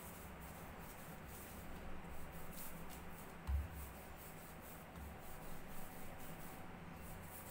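Wooden rolling pin rolled back and forth over potato dough on a plastic sheet: quiet low rubbing and rumbling strokes, with one dull knock about three and a half seconds in.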